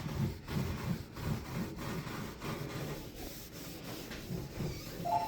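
A wet microfiber cloth rubbing gritty cleanser paste back and forth along the grain of a stainless steel stove front, in regular strokes.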